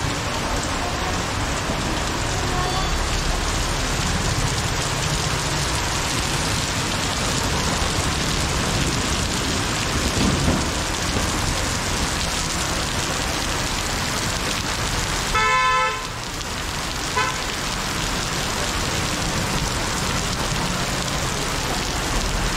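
Heavy rain falling in a steady, even hiss. About two-thirds of the way through, a short pitched toot sounds for about half a second, with a fainter one a second or so later.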